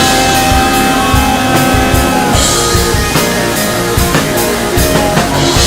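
Rock band playing, with guitar and drum kit; a long held note sounds through the first two seconds or so.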